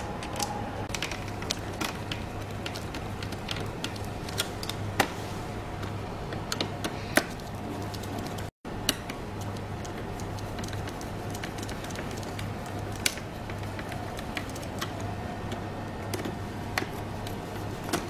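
Irregular small clicks and taps of a small screwdriver and hands working screws in the plastic underside of a robot vacuum, over a steady low hum. The sound cuts out for a split second about halfway through.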